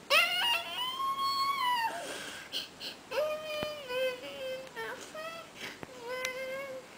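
A toddler crying and whining, inconsolable: one long high wail that rises and then falls in the first two seconds, then several shorter, lower whimpering cries.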